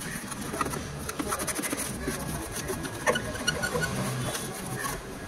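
Cloth wiping and scrubbing over a car's painted metal body panel in irregular strokes, rubbing off grease grime loosened with sprayed diesel.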